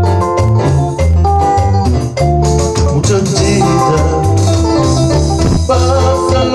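Instrumental Latin dance music: an organ-sounding keyboard melody over a repeating bass line and a steady percussion beat, with electric guitar.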